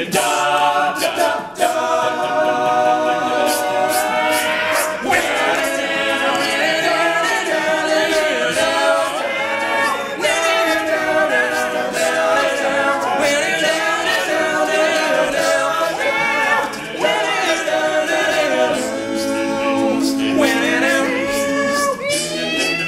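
All-male a cappella group singing in close harmony, voices only with no instruments, holding sustained chords that shift every second or two.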